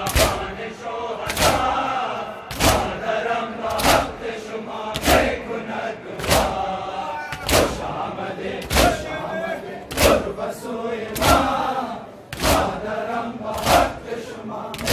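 A large crowd of men doing matam, beating their chests together in time, about a dozen strikes a little over a second apart. A mourning noha is chanted over the beat.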